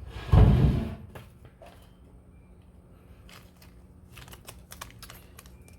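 A dull thump about half a second in, then scattered light clicks and taps of small jewellery parts (crystals, links and findings) being picked up and handled on a work surface.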